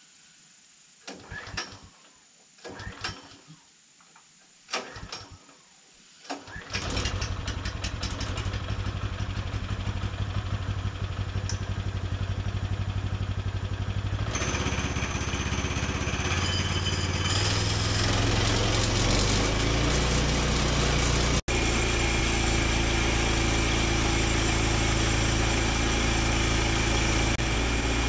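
Small gasoline engine of a Woodland Mills HM122 portable bandsaw mill being pull-started: a series of short pulls on the recoil cord, then it catches about seven seconds in and runs. About halfway through it revs up in steps and then runs steadily at high speed.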